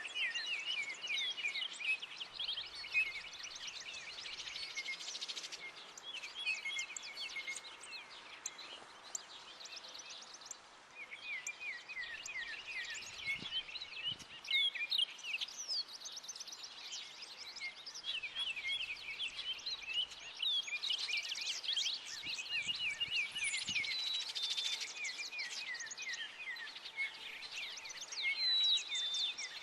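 Several songbirds chirping and singing in quick, overlapping notes over a steady hiss of rain. The chirping thins out briefly about ten seconds in, then picks up again.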